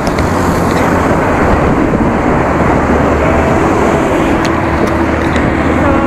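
Road traffic heard from a moving bicycle: a steady rush of air and tyre noise with motor-vehicle engines close by. A steady engine drone sets in about halfway through.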